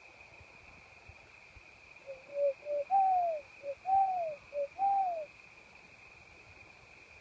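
A series of loud hoots about two seconds in: a few short notes and three longer hoots that rise and fall away, in the rhythm of a barred owl's 'who-cooks-for-you' call. Crickets chirp steadily underneath.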